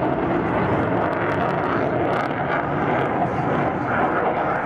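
MiG-29 fighter's twin RD-33 turbofan jet engines heard from the ground as the jet manoeuvres overhead: a steady, dense jet noise without breaks.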